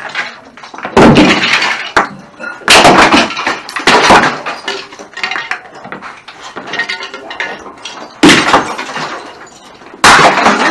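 Five heavy blows smashing into a pile of broken plastic debris, each one a sharp crash followed by clattering and rattling fragments, with a longer gap between the third and fourth strikes.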